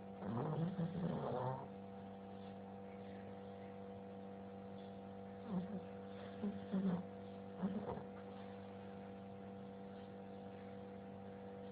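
Snoring: one snore about a second long near the start, then three short snorts between about five and eight seconds in, over a steady electrical hum.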